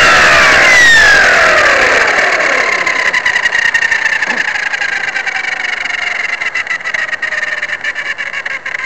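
Electric T-Rex 500 RC helicopter winding down after landing, heard up close. Its motor and rotor whine falls in pitch over the first few seconds, then sinks more slowly with a quick flutter as the blades slow, fading gradually.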